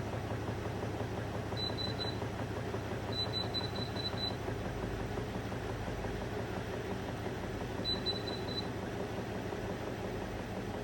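Hotpoint washing machine running with an unbalanced load, a steady low rumble that swells about halfway through. Three short runs of rapid high beeps sound over it, near the start, around the middle and later on.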